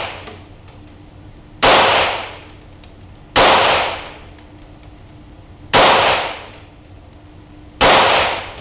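Feinwerkbau AW93 .22LR target pistol held in a Ransom Rest firing standard-velocity CCI Standard .22LR, shot by shot: four sharp reports about two seconds apart, each with an echoing tail, and the tail of the previous shot dying away at the start.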